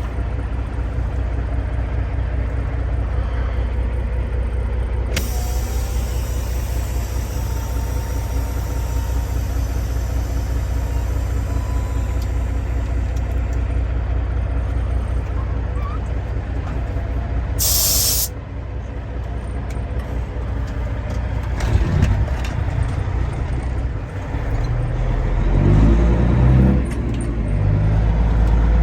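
Kenworth W900 semi-truck's diesel engine idling steadily, with a short sharp air-brake hiss about two-thirds of the way through. Near the end the engine revs up and gets louder.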